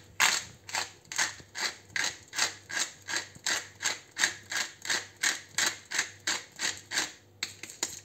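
Hand pepper mill being twisted, grinding black peppercorns with a steady run of crunching rasps, about two to three turns a second, that stop shortly before the end.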